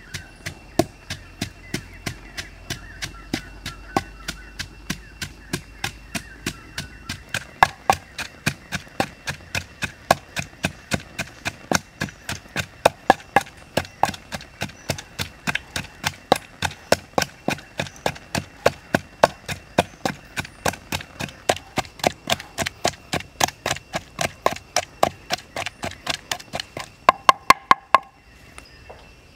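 Wooden pestle pounding chili paste in a wooden mortar: steady knocks about three times a second, quickening briefly near the end, then stopping.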